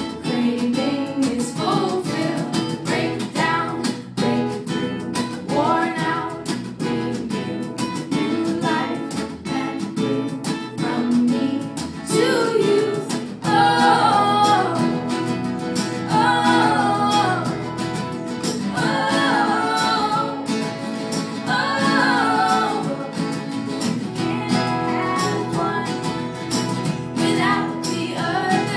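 Live song with a woman's lead vocal over strummed acoustic guitar. The sung melody comes in stronger about halfway through.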